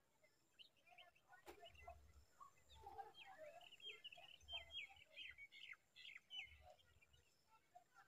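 Faint, high bird chirping: a quick run of short, sharp notes from about three seconds in until past six seconds. A single click comes about one and a half seconds in.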